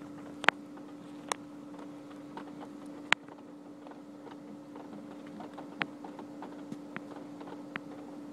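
Hailstones striking hard surfaces close by: scattered sharp clicks at irregular intervals, the loudest about half a second and three seconds in, over a steady hiss of heavy rain.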